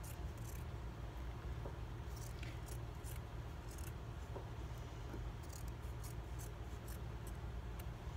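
Scissors snipping through both layers of a T-shirt, cutting fringe strips: a series of short, irregular crisp cuts.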